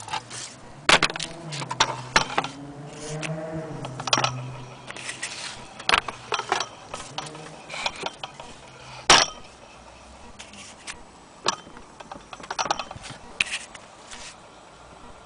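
Antique hand-crank sewing machine and its wooden case being handled: irregular knocks, clicks and scrapes of wood and metal, one sharp knock loudest about nine seconds in. A low wavering pitched sound runs under the first few seconds.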